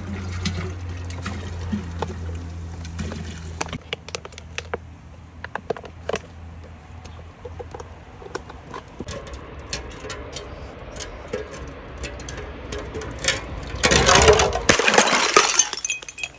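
Fanta soda glugging and fizzing as it is poured from plastic bottles into a large glass jar, with scattered small clicks. About fourteen seconds in comes a loud crash of breaking glass lasting a couple of seconds as the jar shatters on stone steps.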